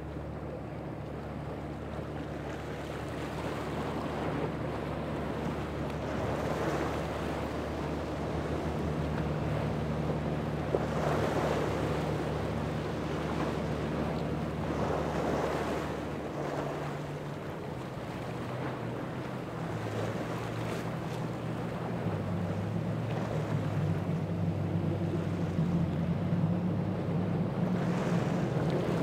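Powerboat engines running with a steady low drone over waves washing and wind buffeting the microphone. About halfway through, the deepest engine tone drops away; a higher engine tone then comes in and grows louder toward the end.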